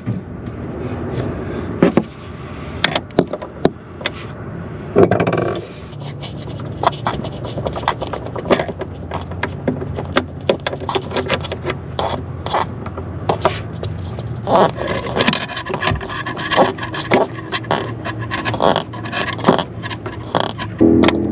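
Hands and tools working at a truck camper slide-out's roller bearing mount: scraping and rubbing against the metal slide rail, with many irregular clicks and knocks that come thickest in the second half.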